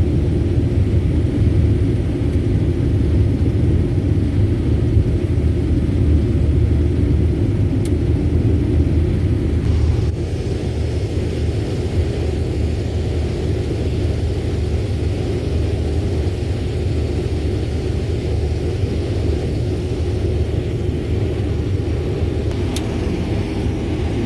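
Combine harvester running steadily in the field, a low engine and machinery rumble heard from inside the cab. The level drops slightly about ten seconds in.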